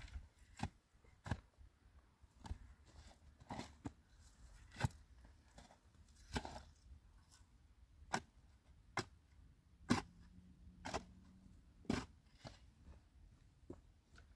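Steel shovel blade striking and scraping into dry, stony soil, a sharp crunching stroke about once a second, some strokes harder than others.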